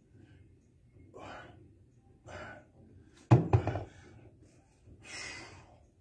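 Heavy exercise breathing, with hard exhales about one, two and five seconds in. About three seconds in, a dumbbell set down on a rubber gym mat lands with a loud thunk and knocks once more as it settles.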